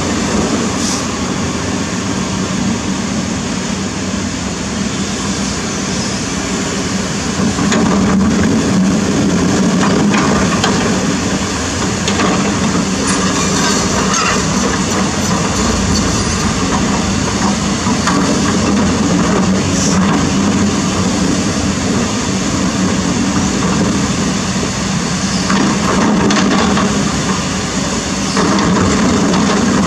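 Kobelco SK200 hydraulic excavator's diesel engine running steadily under load as the bucket works in a fast-flowing river, with water rushing and a few knocks of stones against the steel bucket.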